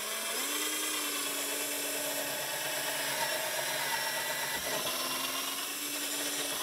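Cordless drill with a 1/8 inch bit boring straight down into a model railroad's ballasted layout base. The motor rises in pitch as it spins up at the start, then runs steady, dipping briefly about four and a half seconds in before picking back up.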